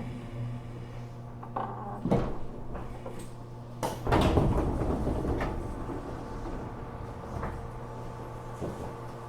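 Inside a JR Kyushu 415 series electric train car at a standstill: a steady hum from the car's equipment, with a sudden clunk about two seconds in and a louder clatter about four seconds in that dies away over about a second.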